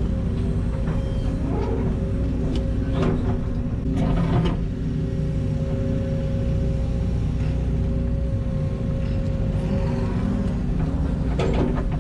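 Excavator's diesel engine and hydraulics running steadily under load, with a few short clanks and scrapes of the bucket working in wet mud, the loudest about four seconds in.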